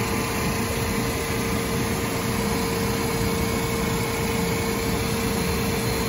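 Liebert/Vertiv precision air-conditioning unit running with its compressor on: a steady mechanical hum with a constant mid-pitched tone.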